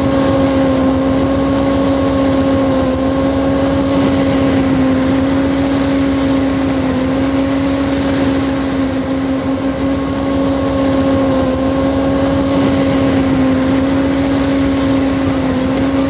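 Vacuum cleaner running steadily, a constant hum with a rushing noise that holds the same pitch throughout.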